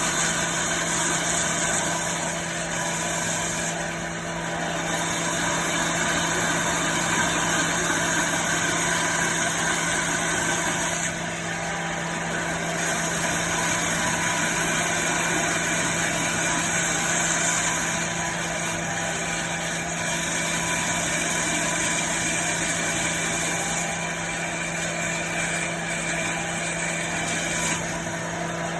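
Woodworking machine running steadily with a constant motor hum. A high hiss over it changes in strength every few seconds.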